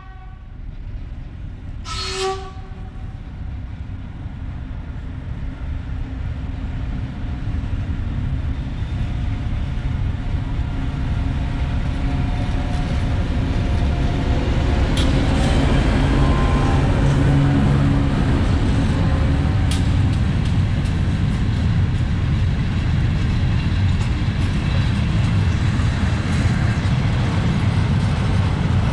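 A diesel locomotive sounds one short horn blast about two seconds in. It then approaches and passes close by, its engine rumble growing louder. A long line of freight tank wagons follows, rolling past with steady wheel-on-rail noise and occasional sharp clicks.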